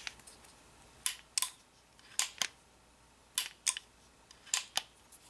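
AR-15 hammer and trigger cycled by hand, metal on metal: four pairs of sharp clicks about a second apart, the hammer cocked and then released by the trigger. It is a function check of the trigger group on its new non-rotating pins.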